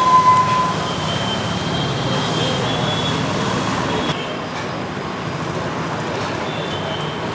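Steady road traffic noise, with a short high steady beep near the start.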